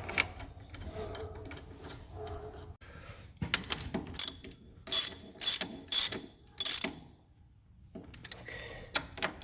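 Hand ratchet wrench clicking in short strokes as bolts are run in. The strokes come loudest in about five quick bursts in the middle, then stop briefly before softer clicking resumes near the end.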